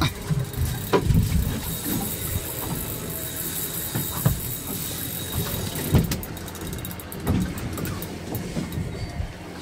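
Small fishing boat's engine running steadily, with a few sharp knocks on the boat.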